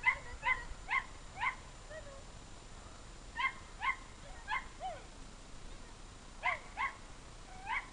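A young dog giving short, high-pitched yips, about ten in all, in three quick bursts of three or four.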